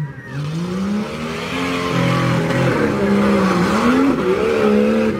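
V8 engine of a 1992 Jeep Cherokee revving hard under full throttle, its pitch rising and falling again and again as the driver works the throttle, over a steady hiss.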